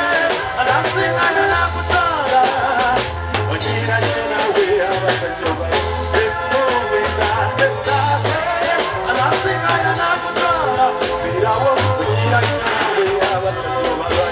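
Live band music with a man singing into a microphone over a bass guitar line and a drum kit, heard through a stage sound system.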